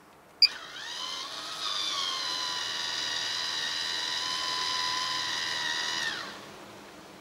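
Maxxair 7500K roof vent fan answering its remote with a short beep, then its electric lid-lift motor whining as it raises the dome lid. The whine rises in pitch as it starts, runs steady for about four seconds, then winds down and stops near the end.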